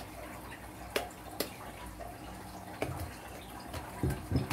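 Gloved hands kneading sticky keropok lekor dough of blended fish and tapioca flour in a glass bowl: wet squelching and slapping. A few sharp clicks come in the first three seconds, and low thumps follow near the end.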